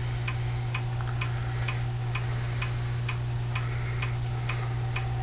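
Rapid, even mechanical ticking, about three ticks a second, over a steady low hum.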